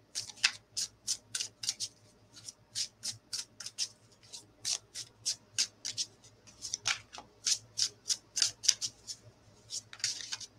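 A deck of oracle cards being shuffled by hand: an irregular run of short, crisp card slaps and clicks, several a second.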